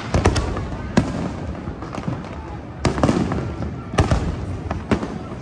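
Aerial fireworks bursting: a run of sharp bangs at irregular intervals, two close together at the start and then roughly one a second, with a continuous rumble of distant bursts and echoes between them.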